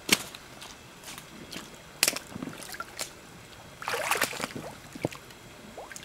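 Shallow pond water splashing and sloshing as someone wades: a few separate sharp splashes and a longer slosh about four seconds in.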